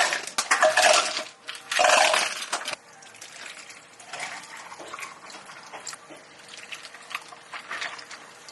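Two short bursts of rushing water, about a second each, at a cafe counter, followed by light clicks and taps of drink-making work over a steady faint machine hum.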